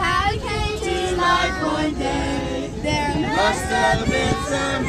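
A group of adults and children singing a Christmas song together, several voices at once, over a low steady rumble.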